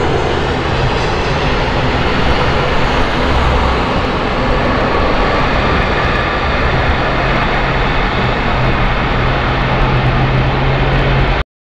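Twin IAE V2500 turbofan engines of a KC-390 military transport running steadily as it rolls along the runway. The sound breaks off abruptly just before the end.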